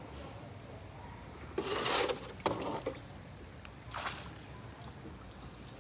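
Water splashing and sloshing: a few soft splashes, the biggest about two seconds in and a shorter one near four seconds, over a faint steady hiss.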